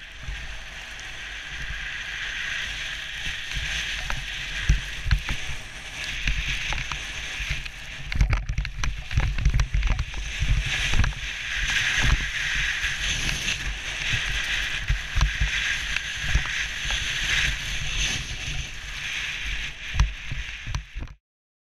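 Skis hissing and scraping over chopped-up snow on a downhill run, swelling and fading through the turns, with frequent low thumps from wind buffeting the camera and bumps in the snow. The sound cuts off suddenly just before the end.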